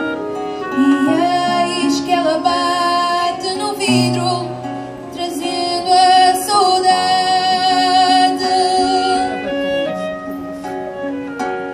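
Live acoustic music: a woman singing long, wavering notes over clarinet and classical guitar.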